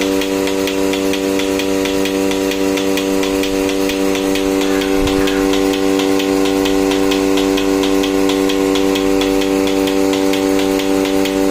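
Portable bucket milking machine running steadily: its electric vacuum pump gives a constant hum, over which the pulsator ticks fast and evenly while the teat cups are on the cow, milking in progress.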